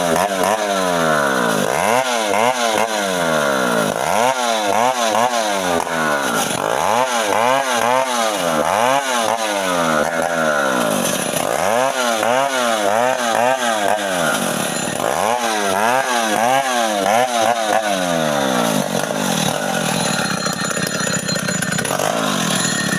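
Two-stroke chainsaw cutting guava wood. The engine pitch sags and climbs back over and over, about every two seconds, as the chain bites into the wood and frees again, then runs at a steadier pitch near the end.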